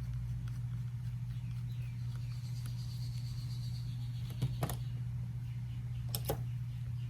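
Small sharp clicks of a precision screwdriver working the two pentalobe screws at the bottom of an iPhone 8, two pairs of them in the second half, over a steady low hum.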